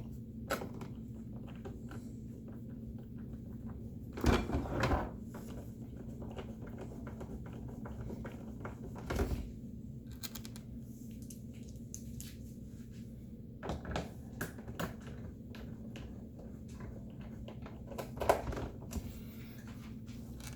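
Scattered knocks and clicks of a plastic coffee maker housing and a screwdriver being handled as the base is screwed back on, with clusters of louder knocks about four, nine, fourteen and eighteen seconds in, over a steady low hum.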